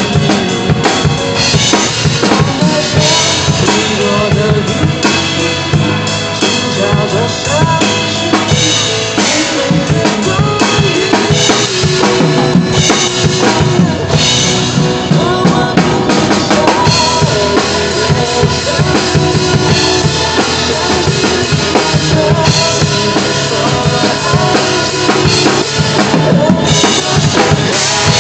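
Acoustic drum kit played along with a recorded pop song: a steady groove of kick and snare with cymbal crashes now and then over the song's accompaniment.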